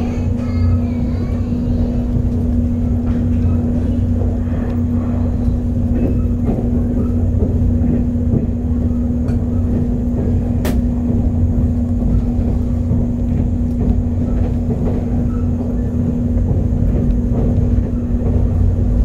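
Cabin rumble of a 485-series electric train running at speed, with a steady low hum under it. One sharp click sounds about ten seconds in.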